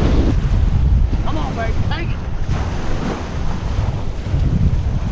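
Wind buffeting the microphone over small waves washing up on a sandy beach, a steady uneven rumble.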